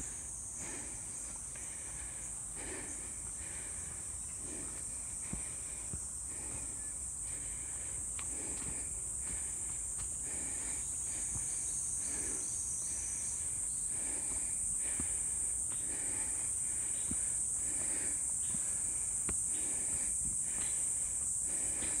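A steady, high-pitched insect chorus that grows gradually louder, with a walker's soft footsteps at an even walking pace underneath.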